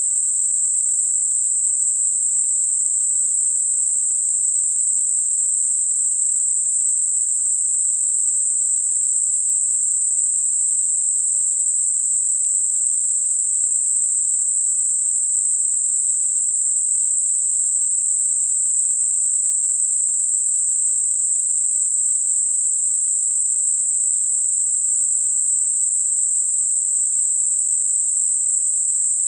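Synthetic Gaussian narrow-band noise centred at 8 kHz, generated as a tinnitus masker: an even, unchanging high hiss with nothing in the low or middle range.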